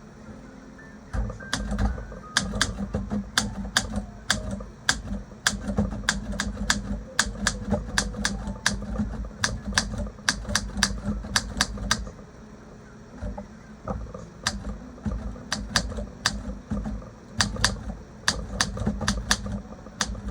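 Olympia SM3 manual typewriter being typed on: sharp, irregular key strikes, several a second, each with a low thud from the typebar hitting the platen. There are two runs of typing with a short pause about two-thirds of the way through.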